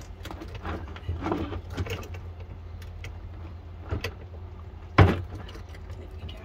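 Grey water hose's cam-lock coupling being fitted onto a waste caddy's valve: a few small clicks and rattles of the fittings, then one sharp clack about five seconds in as the coupling locks on, over a steady low rumble.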